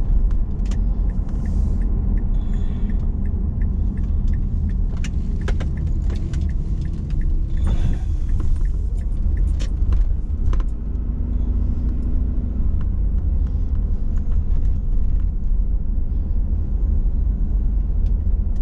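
Steady low rumble of a car driving along a town street, heard from inside the cabin, with frequent small rattles and clicks.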